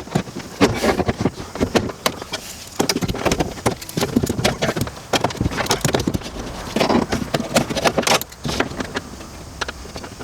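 A hand roller being worked hard over sound-deadening sheet on a car door's inner panel, making an irregular clatter of clicks, knocks and crinkling.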